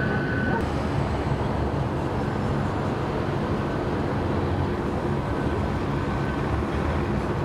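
Steady, even rumble of freeway traffic, with no single event standing out.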